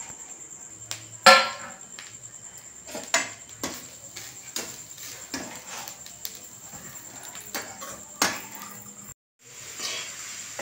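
Metal kitchenware knocking on a cooking pan: a steel bowl and a spatula clink against the pan as grated coconut and sugar are tipped in and stirred. There is a sharp, loud clank about a second in, followed by several lighter knocks spaced a second or two apart.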